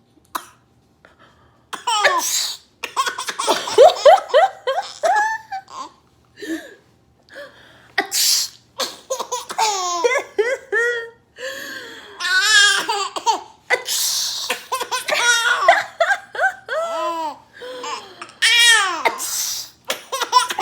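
A baby belly-laughing in repeated fits, each set off by a woman's pretend sneeze, which comes as a short hissy burst several times between the laughs.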